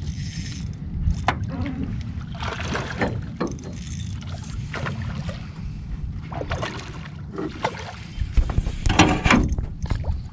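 Wind rumbling on the microphone and water against a small boat's hull. A few bursts of clicking and rustle come through, the loudest about nine seconds in.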